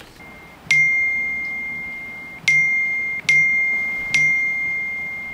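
iPhone message notification chime sounding four times in quick succession, each a single bright ding that rings on and fades. It is a burst of incoming text messages.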